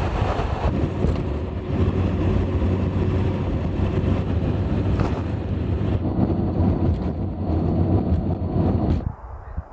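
1996 Ford F350 pickup with its 7.3 Powerstroke diesel driving at highway speed: a steady low rumble of engine, tyres and wind. It cuts off suddenly about nine seconds in.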